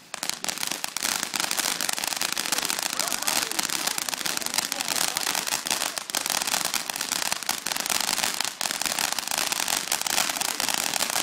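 Ground-level fireworks spraying sparks, with a dense, steady crackle of many small pops that starts just after the beginning.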